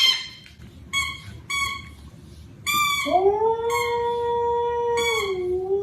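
Dog yipping in short high-pitched cries about once a second, then howling one long call from about three seconds in, which rises at its start and dips near the end.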